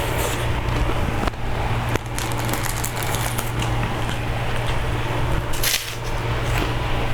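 A steady low hum with hiss, broken by a few short clicks and crackles of eating, twice in the first two seconds and once near the end.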